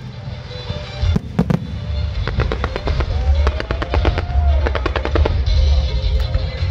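Fireworks display: a rapid string of sharp bangs and cracks from about a second in until about five seconds, over a constant deep rumble, with music playing alongside.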